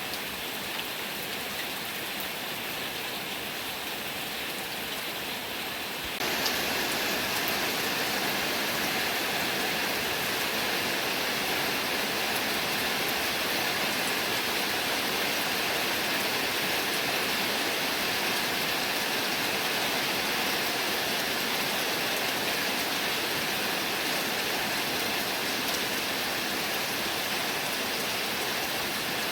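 Heavy rain falling in a dense, steady hiss, which jumps suddenly louder about six seconds in and holds there.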